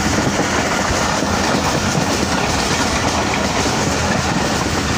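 A train running along the track, with a steady, even running noise of wheels on rails throughout.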